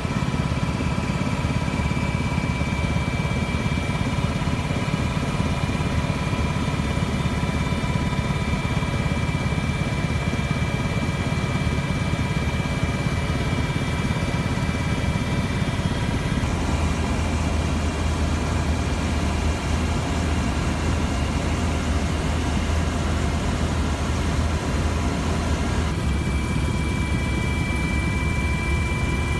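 Steady aircraft engine drone heard from inside the cabin: a deep rumble with a few steady high whining tones. The rumble grows heavier and the whine drops out a little past halfway, then the whine returns near the end.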